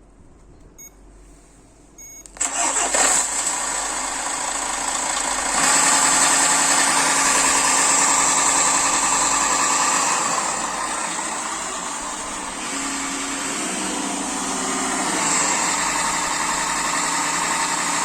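A vehicle engine is started about two seconds in, after a quiet stretch, and then keeps running steadily, getting louder about five seconds in. The owner posts this running sound as an engine sound problem.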